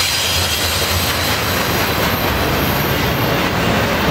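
Double-stack container well cars of a Norfolk Southern intermodal freight train rolling past, with steady steel-wheel-on-rail noise and a faint, thin high-pitched wheel squeal over it.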